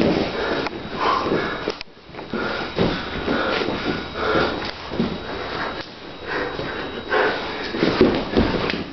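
Two grapplers breathing hard and sniffing through the nose while rolling, with a few dull thumps of bodies and limbs on the mats.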